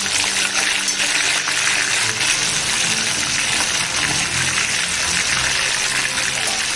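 Chicken lollipops deep-frying in hot oil in a kadai, the oil bubbling and sizzling steadily with fine crackling. This is the second fry, to make them crisp.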